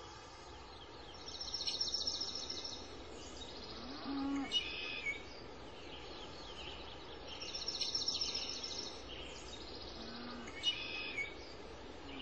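Faint night-time nature ambience: a steady low hiss with two spells of rapid, high-pitched chirping, and a short low hoot about four seconds in and another near ten seconds.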